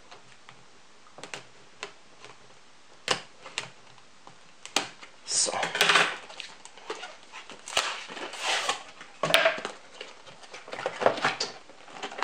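Cardboard product box being opened by hand: a pull tab is torn and the box slid apart and its lid lifted, in a series of rustles, scrapes and light clicks and knocks, loudest about halfway through and again a little later.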